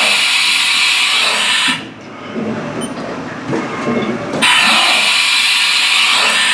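Haas VF-3 vertical machining center running a tool change: two long blasts of compressed air hissing at the spindle's tool release, the first stopping about two seconds in and the second starting about four and a half seconds in, with quieter mechanical sounds of the tool changer between them.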